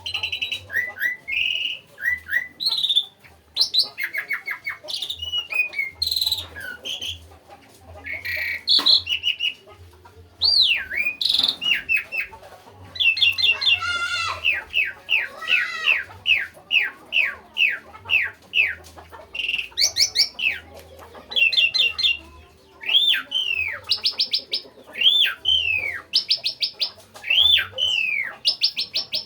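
Asian pied starling (jalak suren) singing steadily, a varied song of whistles and chattering notes, with a fast run of repeated notes in the middle and arching rise-and-fall whistles toward the end.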